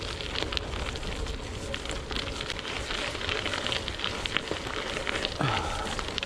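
Gravel-bike tyres crunching and crackling over loose gravel on a woodland track, a dense patter of small clicks over a steady low rumble. A short falling squeak sounds about five seconds in.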